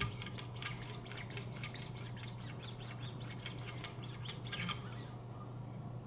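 Lapping-film paddles of a Wicked Edge guided sharpener stroked quickly along a steel knife edge at the 0.5-micron polishing stage: a fast run of short, squeaky strokes that thins out near the end, over a steady low hum.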